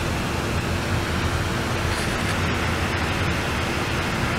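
Laptop cooling fan running flat out, a loud steady rush of air with a faint steady hum under it: the malfunctioning laptop working itself hard.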